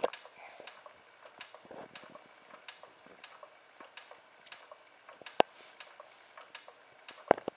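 Baby swing mechanism ticking steadily, about two ticks a second, with two sharper, louder clicks near the end.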